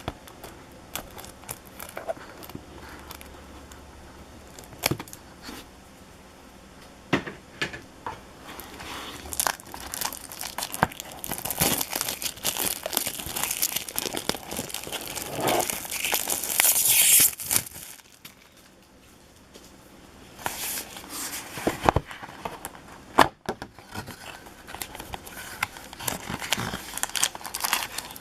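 Hockey card pack wrappers being crinkled and torn open, with cards handled between, in scattered clicks and rustles; the crinkling thickens and grows loudest in the middle, then drops off briefly before the handling resumes.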